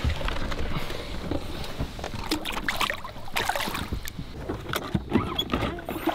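Bass boat on the water: a steady low rumble of water and wind against the hull, with scattered knocks and clicks from handling on the deck.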